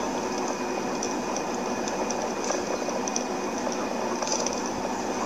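Steady hiss of a moving vehicle heard from inside it, with faint steady tones and light scattered rattles.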